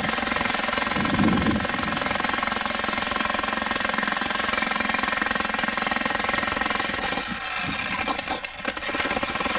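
Electric jackhammer hammering into rock in a continuous rapid rattle, which falters briefly a little over two-thirds of the way through before running steadily again.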